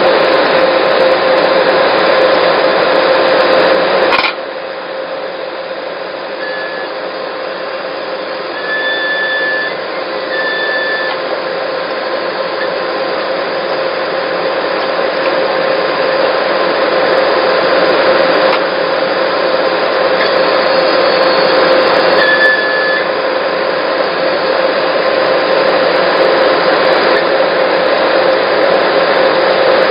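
Skid steer loader working a backhoe attachment: engine and hydraulics running in a steady mechanical drone with a constant whine. The level drops suddenly about four seconds in and then gradually builds back up, with a few brief higher-pitched whines along the way.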